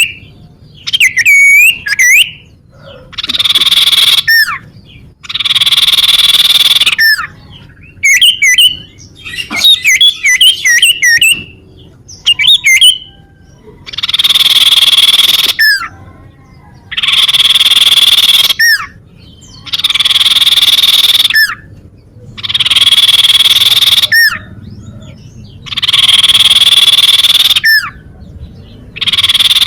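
Common iora (cipoh) calling: long harsh buzzing trills of about two seconds, repeated every few seconds, with short whistled glides between them and a quick run of chirping notes about ten seconds in.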